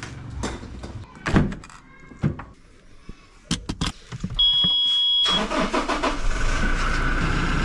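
Knocks and thumps of gear being loaded into an SUV, then a beep lasting about a second from the push-button ignition, after which the engine starts about five seconds in and runs at a steady idle.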